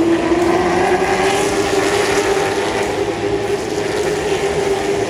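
Late model stock cars racing past at full throttle, their V8 engines giving a steady, loud note that climbs slowly in pitch.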